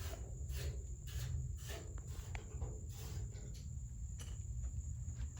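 2.5-ton Comfort-aire central air conditioner's outdoor condensing unit running, with a steady low hum. A steady high thin tone and soft irregular rustles sit over it.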